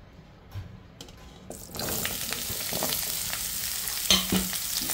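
Cubed bottle gourd going into hot oil in a nonstick pan. After a few faint clicks, a steady sizzle starts suddenly about two seconds in, with scattered scrapes and a louder knock near the end.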